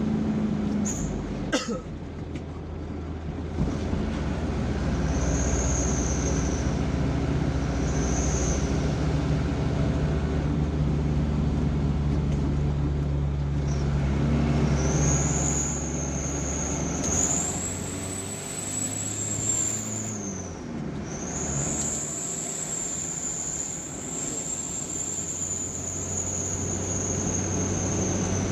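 Vehicle engine and road noise while driving, with a steady low drone throughout. A thin high-pitched whine comes and goes twice early on, then holds from about halfway, rising and falling in pitch.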